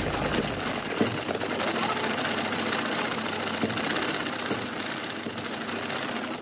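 Industrial sewing machine running steadily, its needle stitching through a thick black leather strap in a rapid, even rhythm.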